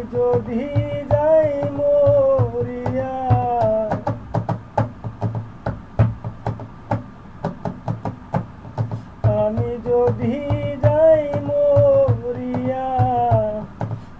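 Bengali folk-song music with no lyrics: a wavering melody in two phrases, the second starting about nine seconds in, over steady drum beats that carry on alone between the phrases.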